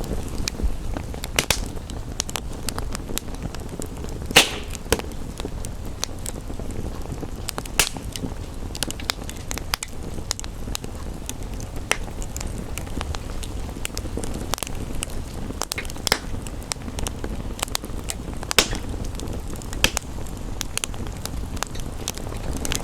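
Wood fire crackling in a fireplace, with irregular sharp pops (the loudest about four seconds in) over a steady low rush.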